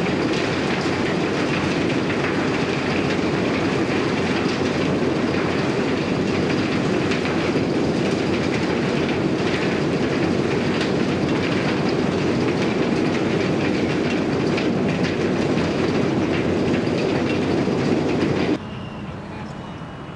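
Eidal Model 100 vertical grinder, a belt-driven machine powered by a 100 hp electric motor, shredding wood. It makes a loud, steady grinding noise full of small clicks and knocks as chips are thrown out of the discharge chute. Near the end the noise drops abruptly to a quieter, steady running sound.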